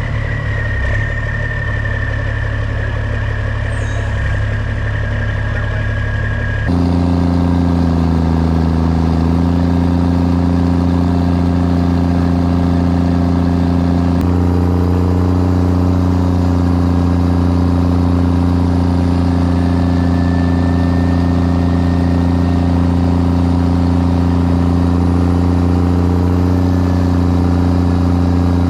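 Heavy truck's diesel engine running at a steady pitch, with a faint high whine over it at first. About seven seconds in, the sound changes abruptly to a slightly louder, steadier engine note.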